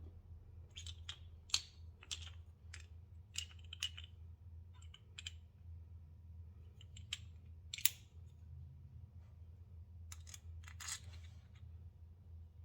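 Irregular light clicks and taps of small metal hardware being handled: a spool slider bolt being readied with thread locker and started into the swingarm. The sharpest clicks come about 1.5 s and 8 s in, over a faint steady low hum.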